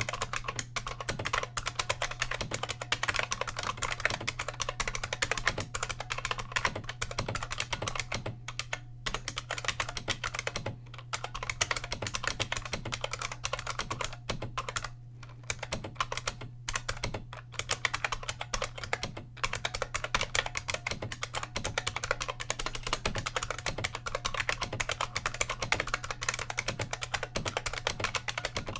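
Fast, continuous typing on an IBM Model M keyboard, its bolt-modded buckling-spring switches clicking and clacking with each keystroke, with a few short pauses. A steady low hum runs underneath.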